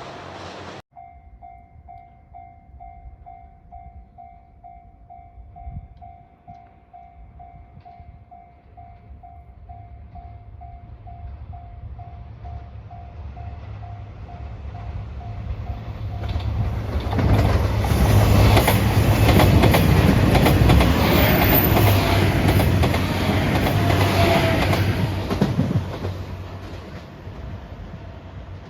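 A train passing: a rumble builds to a loud peak for about ten seconds in the second half, with a brief squeal partway through, then fades. Before it, a two-tone ding repeats about twice a second and stops as the train arrives.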